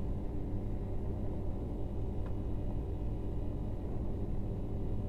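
Steady low background hum, with a faint click about two seconds in.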